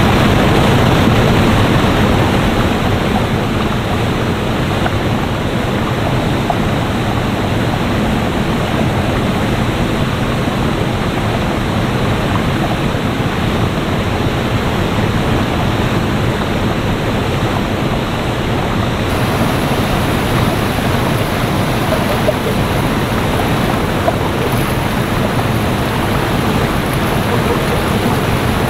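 Floodwater rushing over a waterfall and through the creek: a loud, steady rush of water from a creek in flood.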